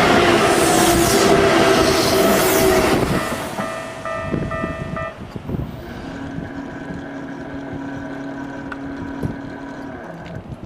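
Hokuso 7300 series electric train passing close by at a level crossing: loud rushing wheel and track noise with steady tones in it, dropping away about three seconds in and leaving fainter steady tones.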